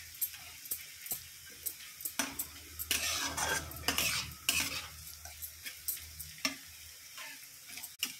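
Sliced onions and green chillies sizzling in oil in a kadhai, browned, while a flat metal spatula stirs and scrapes them around the pan in quick, irregular strokes.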